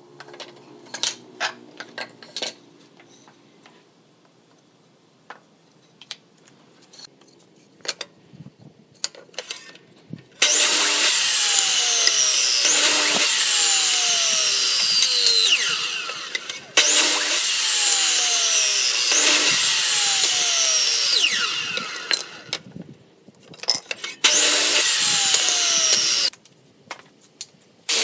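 Scattered knocks and clicks of wooden boards being handled, then a corded miter saw run three times to cut wood: two long runs of about five seconds and a short one of about two, the first two fading away gradually as they end.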